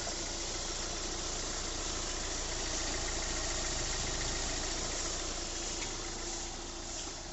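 Hyundai Creta 1.6 diesel engine idling steadily just after being started, growing slightly quieter near the end. With the faulty diesel regulator valve replaced, it now starts and runs smoothly, without the late starting and knocking it had before.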